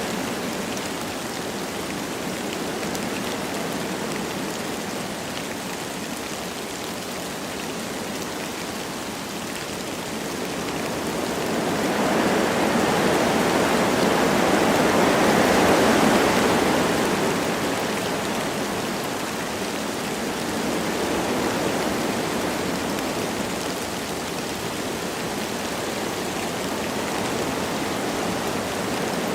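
Wind blowing through forest trees with light rain falling, a steady rushing that swells into a stronger gust about halfway through and then dies back down.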